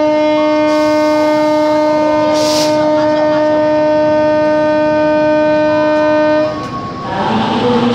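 Diesel locomotive air horn sounding one long, steady blast, a chord of several tones, which cuts off about six and a half seconds in.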